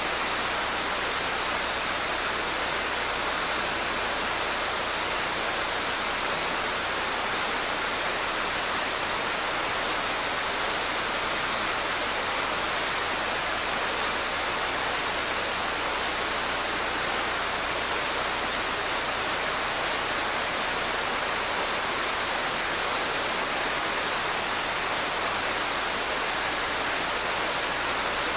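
Mountain stream water rushing over rocks, a steady, unchanging sound.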